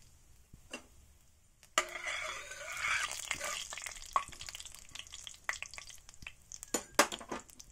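Whole spices (cumin seeds, bay leaf, black cardamom, clove, black peppercorns, cinnamon) sizzling in hot oil in a stainless-steel kadhai for a tadka. The sizzle flares up suddenly about two seconds in and dies down over the next few seconds, while a steel spoon stirs and clinks against the pan, the sharpest clinks near the end.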